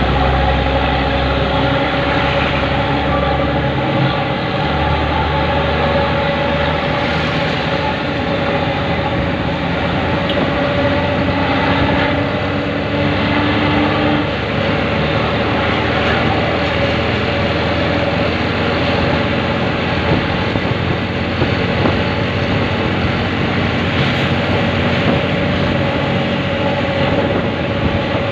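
Steady engine and road noise of traffic on the move close behind an ALS intercity bus, a continuous drone with a constant hum and no sudden events.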